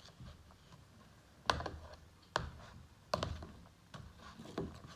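Spoon clicking and scraping in a bowl as slime made from glue, shaving foam and borax water is stirred, a run of sharp clicks with three louder knocks near the middle.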